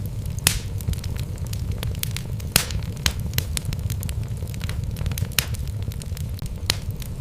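Wood logs burning in a fireplace: a steady low rumble of the flames with irregular sharp crackles and pops, a few louder snaps among them.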